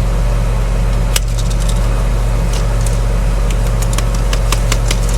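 Tractor engine running steadily. Scattered light clicks and ticks come from a grain moisture tester and corn being handled, several in quick runs from about a second in.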